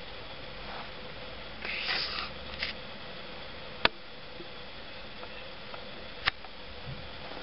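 Small handling noises at a stereo microscope stage while a cleaved optical fibre is positioned under the lens: a brief scratchy rustle about two seconds in, then two sharp clicks about two and a half seconds apart. A steady hiss and faint hum run underneath.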